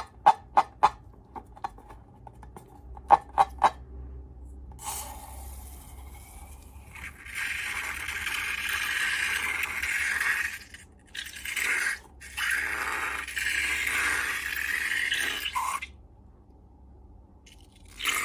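Slime-making handling sounds: a quick run of sharp clicks and taps, then long stretches of scraping with short breaks.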